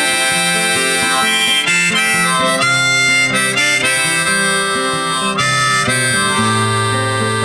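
Background music: an instrumental passage of a song, with a lead melody of held notes over accompanying chords and no singing.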